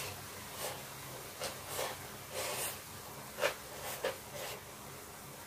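Close-miked mouth sounds of slurping stir-fried ramen noodles and chewing: a string of short separate slurps and smacks, the loudest about three and a half seconds in.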